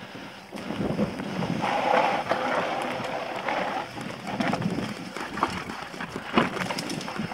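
Mountain bike riding down a rocky singletrack: tyres crunching over dry leaves, dirt and stones, with the bike rattling and knocking over bumps. The sharpest knock comes about six seconds in.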